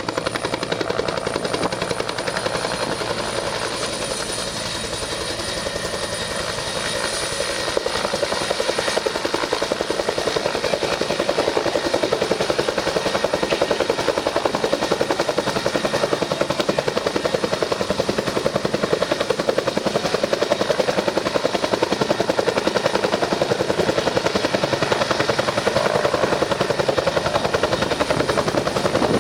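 Search-and-rescue helicopter hovering close, its main rotor beating in a rapid steady rhythm over the whine of its turbine engines; it dips slightly a few seconds in, then grows louder and holds.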